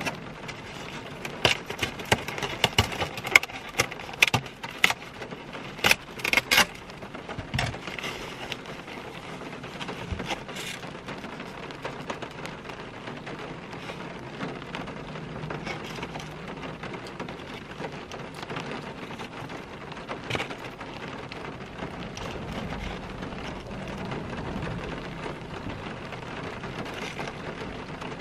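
Steady rain falling on a car, heard from inside the cabin. In the first seven seconds or so a plastic takeout container is handled with a series of sharp clicks and knocks, and a few single clicks follow later.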